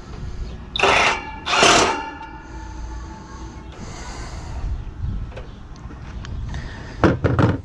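Metal parts of an air-conditioning condenser being handled: two loud metallic scrapes or clanks about a second in leave a lingering metallic ring, and a few sharp knocks follow near the end, over a low background rumble.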